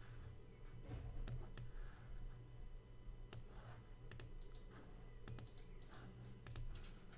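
Faint computer mouse clicks, about nine of them scattered through, several in quick pairs, over a low steady hum.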